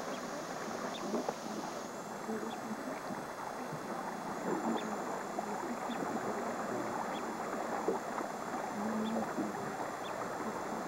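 Steady running noise of a small boat on open water, its motor and the water blending into an even rumble.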